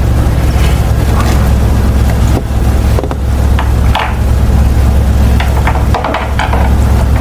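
A metal spoon clicking and scraping on a plastic high-chair tray in scattered light taps, over a steady low hum.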